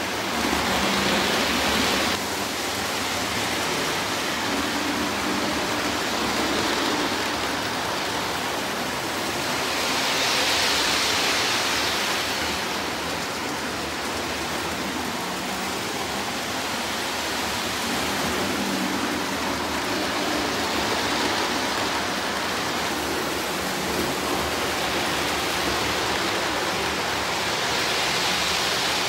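O gauge model diesel locomotive running on a test loop of track, a steady rolling hum of motor and wheels on rail that swells and fades several times as it comes round past the microphone.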